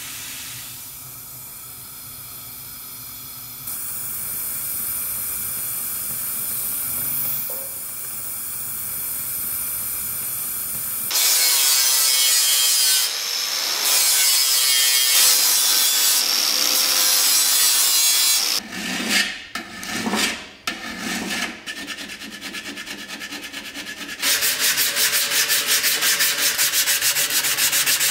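Gas torch flame hissing steadily, getting louder a few seconds in. About eleven seconds in, an angle grinder with an abrasive disc grinds the metal body of a camping stove for several seconds. This is followed by a few irregular rubbing strokes, then fast, even rubbing of a sanding block on the stove body near the end.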